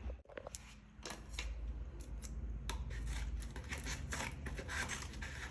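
A run of light, irregular clicks and taps as bottles and other items are handled and set into a fridge.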